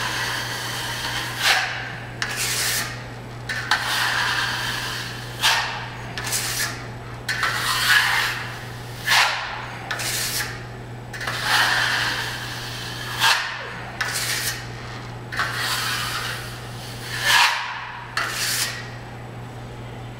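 Wide drywall knife scraping joint compound across a ceiling in repeated strokes, about one swipe every second or two, each with a rasping scrape. A steady low hum runs underneath.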